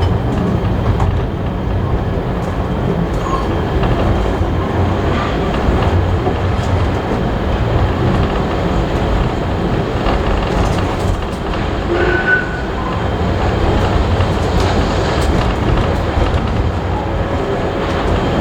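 Passenger carriage of a steam-hauled train rolling along the track: a steady heavy rumble of wheels on rails with scattered clicks and rattles, and a brief high tone about twelve seconds in.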